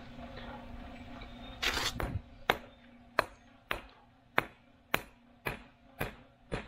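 Hammer tapping a granite Belgian block to set it in its mortar bed, with sharp, ringing knocks about every half second starting about two and a half seconds in. Just before the tapping there is a short scraping sound.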